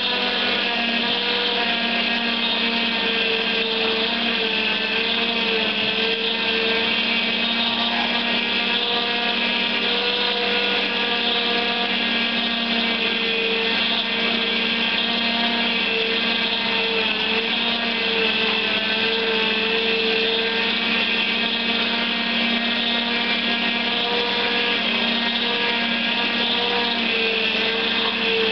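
Zelmer JP 1500 vertical slow juicer running steadily, its auger pressing pineapple: a continuous motor hum of several steady tones, one of them wavering slightly in pitch.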